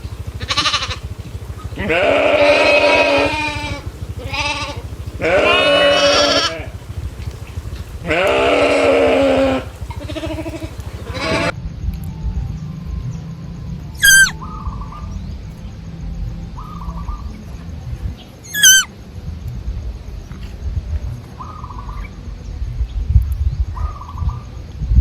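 Goats bleating: three long, wavering bleats in the first half. After that, a quieter stretch with two short, sharp calls that fall steeply in pitch.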